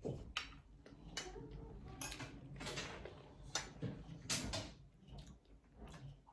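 Someone eating a meal at a table: scattered short clinks of a spoon and fork on a plate, mixed with mouth noises from eating fried eggplant and rice.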